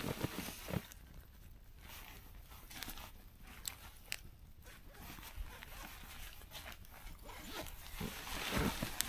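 Sleeping bag fabric rustling and its zipper being worked as a person shifts inside it, loudest at the start and again near the end, with a couple of sharp clicks midway.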